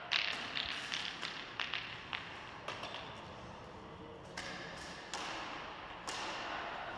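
Footsteps on a gritty concrete floor, short taps and scuffs at a walking pace, echoing in a large empty hall, with a few louder knocks or scrapes with longer echo tails in the second half.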